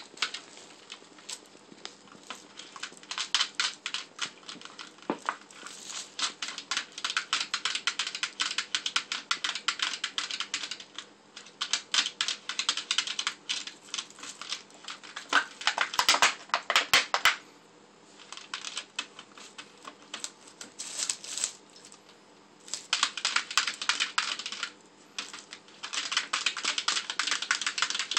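A cat clawing and scratching at a large plastic water jug: rapid clicking and scraping in bouts of a few seconds with short pauses, with a few harder knocks about sixteen seconds in.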